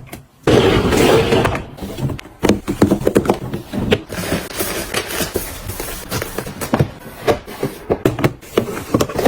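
Items being handled and set down during organizing: a quick run of taps, clicks and knocks with rustling in between.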